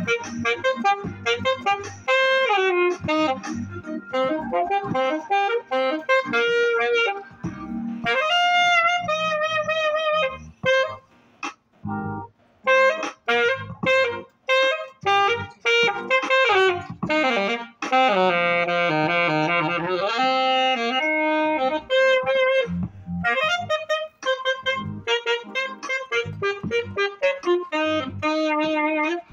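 Alto saxophone playing a solo melody: quick runs of short notes and bends, with one long held note with vibrato about two-thirds of the way through.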